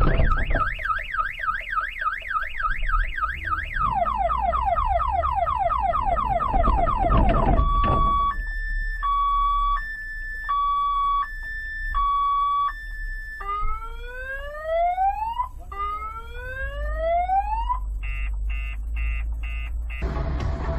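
Car alarm siren running through its tone sequence: a fast up-and-down warble, then rapid rising chirps, a steady high-low two-tone, three slow rising whoops and a burst of quick beeps. It cuts off suddenly near the end.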